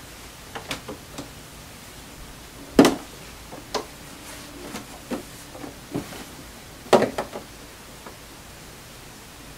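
Scattered knocks and taps from handling at a sewing machine while quilt pieces are chain pieced, two of them louder, over a steady hiss.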